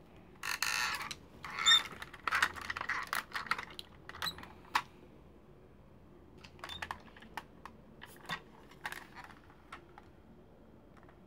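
Hard plastic parts of a Transformers Powermaster Optimus Prime toy's trailer clicking and rattling as they are handled and moved: a quick flurry of clicks in the first few seconds, then scattered single clicks.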